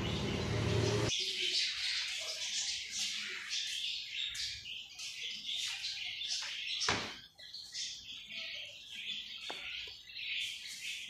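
Small birds chirping in a busy, rapid chatter of short high notes. A low rumble cuts off about a second in, and one sharp falling sweep stands out about seven seconds in.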